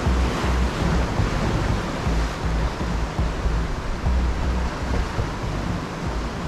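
Sea surf breaking and washing over coastal rocks, a steady rushing wash, with wind buffeting the microphone in uneven low gusts.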